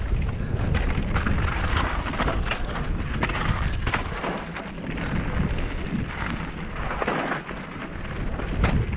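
Downhill mountain bike ridden fast over a rough dirt and gravel trail: wind buffeting the helmet-mounted microphone as a heavy rumble, with many sharp clicks and rattles from the bike and tyres on stones and roots.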